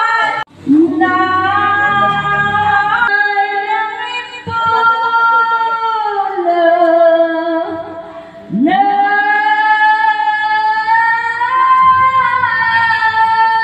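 Background music: a woman's voice singing long, held notes that glide between pitches, with short breaks between phrases about half a second in and again past the middle.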